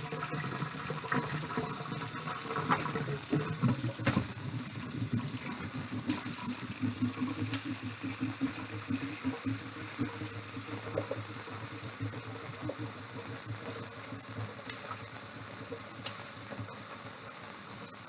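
Kitchen tap running into a sink, water splashing steadily, with a few light knocks.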